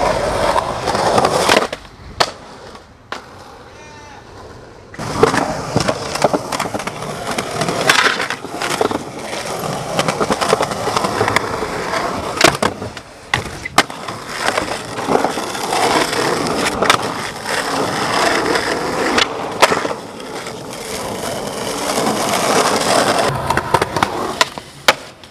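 Skateboard wheels rolling over concrete pavement, broken by sharp clacks of the board popping and landing, with a quieter stretch a couple of seconds in.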